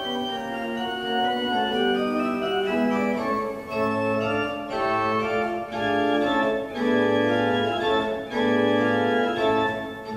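Organ music playing slow, held chords, with low sustained bass notes coming in about four seconds in.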